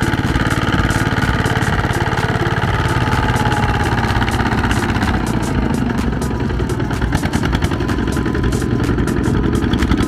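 Single-cylinder diesel engine of a Kubota walking tractor running steadily with a rapid chugging beat while pulling a trailer loaded with rice sacks, with more clatter in the second half.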